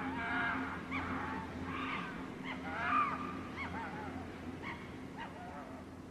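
Repeated short animal calls, each rising then falling in pitch, about one or two a second and loudest about halfway through, over a low steady drone.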